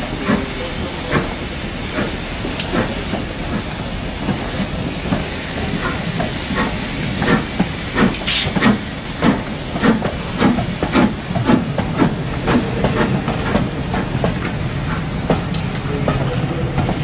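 A train moving through the station: a steady hiss under a run of clicks and knocks, thickest about halfway through.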